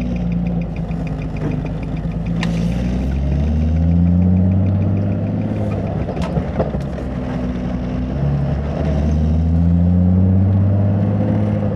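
Nissan 350Z's 3.5-litre V6 engine heard from inside the cabin, revving up as the car accelerates, settling, then revving up again near the end, with no tire rubbing audible. A couple of sharp clicks are heard in between.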